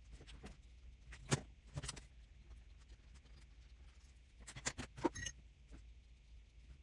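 A handful of sharp clicks and taps from brush markers and a paintbrush being picked up and set down on the work surface: one loud click about a second in, two more just before two seconds, then a quick run of clicks around five seconds, the last with a short ring. A low steady hum lies underneath.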